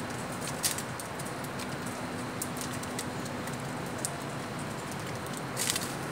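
Small finches pecking and cracking seed at a plastic feed dish: scattered sharp clicks over a steady background hiss, with a quick cluster of clicks near the end.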